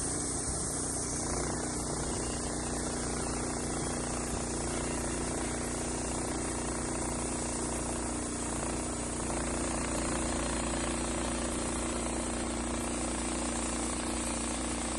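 An engine running steadily at a constant speed, with a constant hiss over it.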